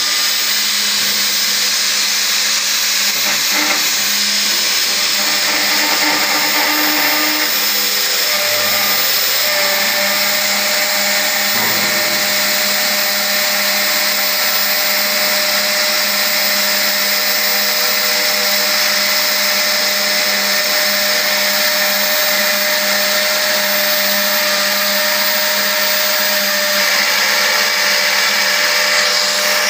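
Metabo KFM 15-10 F edge milling machine running under load, its cutter head milling a 7 mm chamfer along the edge of a metal plate. It makes a loud, steady motor whine over the continuous rasp of the cut.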